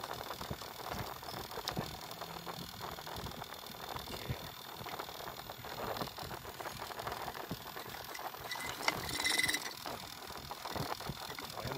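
Air-conditioner compressor running while it sucks compressor oil from a bottle through a charging hose, with small clicks and rubbing from the hose and bottle being handled. A brief hiss about nine seconds in.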